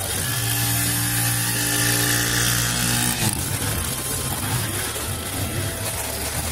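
Petrol brush cutter's small engine running at high revs, a steady pitched drone for about three seconds, then wavering and uneven as the line cuts through weeds along the concrete.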